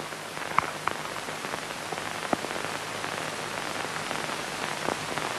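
Steady hiss of an old film soundtrack, with a few faint scattered clicks and crackles.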